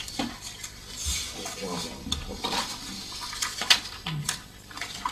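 Sheets of paper rustling and being shuffled on a desk, with scattered light knocks and clicks. The sharpest knock comes a little after three and a half seconds in.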